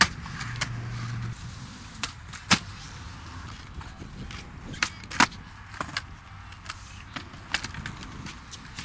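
Skateboard wheels rolling on concrete, with repeated sharp clacks of boards hitting the ground, the loudest about two and a half and five seconds in.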